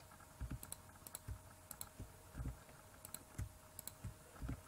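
Faint, irregular clicks of a computer keyboard and mouse, with soft low knocks in between: keys pressed and mouse buttons clicked one after another, about a dozen in all.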